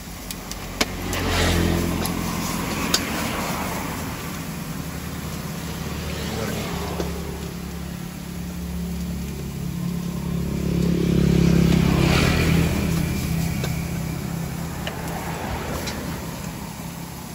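Motor vehicles passing on the road close by, their engine noise swelling and fading twice, loudest about two-thirds of the way through. A few sharp clicks of a metal spatula against the wok.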